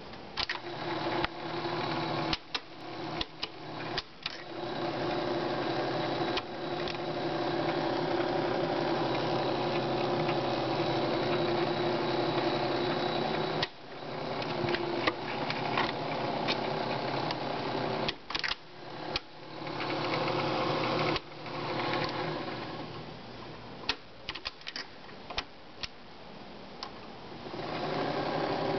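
Elmo K-100 SM dual-8 / super-8 movie projector's motor and film mechanism running with a steady whir. It stops and restarts several times with sharp switch clicks as the control knobs are turned, runs quieter for a while past the middle, and comes back up near the end.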